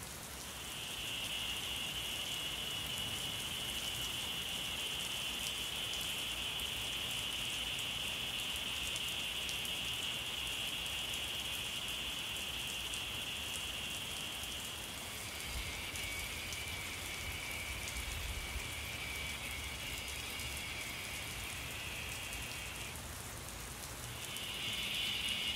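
Cicadas droning in a steady high-pitched buzz. About halfway through it turns into a rougher, two-pitched pulsing buzz, breaks off briefly, then returns to the steady drone near the end.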